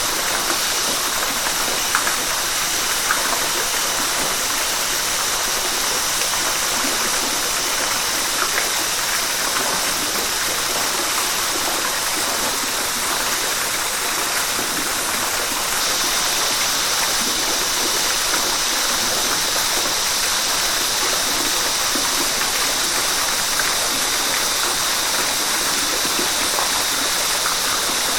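Steady rush of a flowing river, an even continuous wash of water whose high hiss gets slightly brighter about halfway through.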